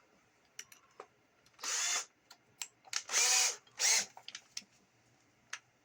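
Electric drill run in three short bursts, about a second and a half in, at three seconds and just before four, as a 7/32-inch bit bores into the radio's plastic case, with small clicks and knocks between. The hole is being widened in steps so the plastic doesn't crack.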